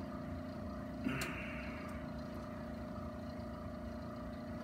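Steady machine hum, with a short click and a brief rustle about a second in.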